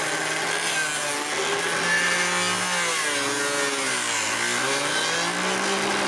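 Homemade sander driven by a blender's electric motor, running with a glass mirror's edge held against it. The motor's hum sags in pitch about four seconds in and then picks up again, under a steady hiss of grinding.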